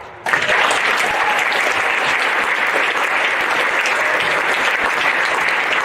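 Audience applauding, the clapping starting suddenly just after the start and then holding steady and loud.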